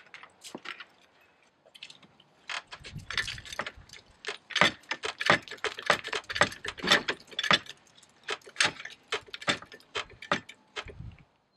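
A steel hydraulic floor jack being worked under a car: a quick, uneven run of metallic clicks and clanks, with a few dull thumps.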